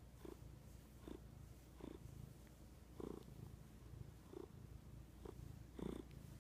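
Domestic cat purring faintly and steadily while being stroked on the head, the purr swelling with each breath about once a second.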